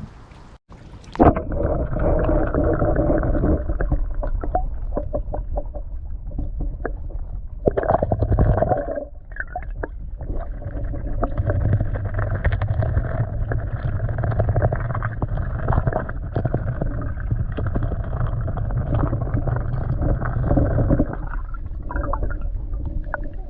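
Muffled rumbling, rubbing and knocking from a GoPro Hero 9 being handled right at its own microphone. The high end is dulled, and there are many small knocks throughout. It starts suddenly about a second in, after a brief dropout.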